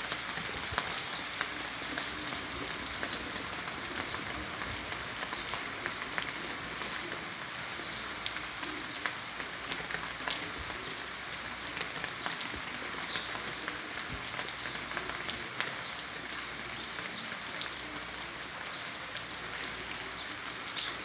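Rain falling steadily: an even hiss dotted with many small drop taps.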